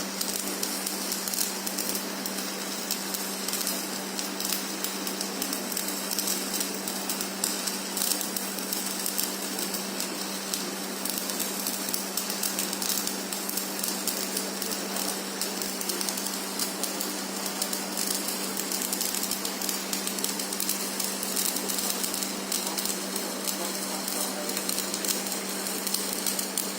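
Stick-welding arc of a rutile ESR-13 electrode crackling steadily while laying the first pass of a fillet weld, over a steady low hum.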